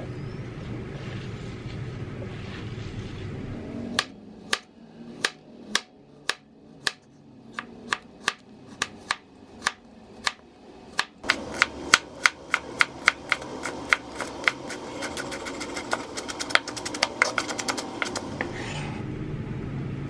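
A low steady hum, then a long run of sharp knocks in the kitchen, starting about four seconds in at about one and a half a second, quickening from about eleven seconds to three or four a second, and stopping shortly before the end.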